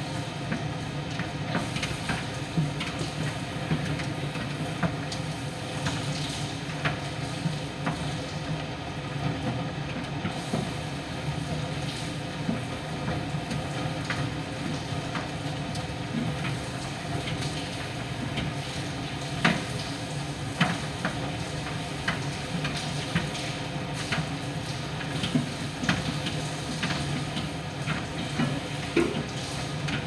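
Miele PT 5136 tumble dryer running in its drying phase: a steady hum from the motor and drum, with irregular light clicks and knocks as the load tumbles.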